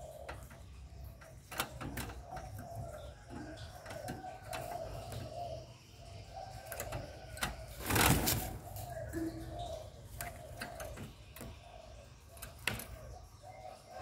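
Caged spotted dove cooing in a run of short, low coos, with scattered sharp clicks and a louder rustle about eight seconds in.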